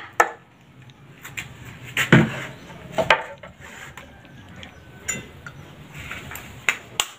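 Scattered kitchen knocks and clinks, about half a dozen spread apart: a knife tapping a wooden cutting board, then a utensil clinking on a glass plate as noodles are stirred.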